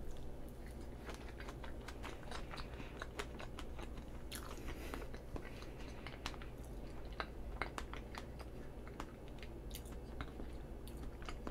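Close-miked chewing of a mouthful of soft strawberry-yogurt cream roll cake, heard as many small mouth clicks.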